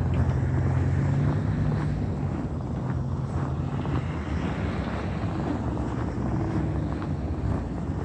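Low engine rumble of passing street traffic, strongest at first and fading about halfway through, with wind on the microphone.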